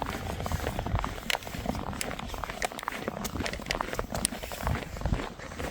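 Footsteps crunching and squeaking in snow, a steady run of short crunches while walking.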